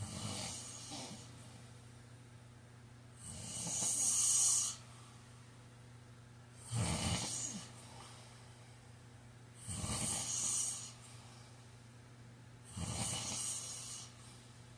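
A man snoring in his sleep: five snores about three seconds apart, each with a breathy hiss.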